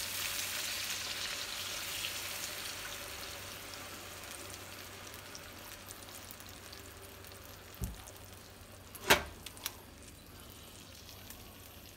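Chicken thighs sizzling in a frying pan with freshly poured chicken broth, the sizzle fading steadily as the broth cools the pan. Near the end come a few short knocks of tongs against the pan.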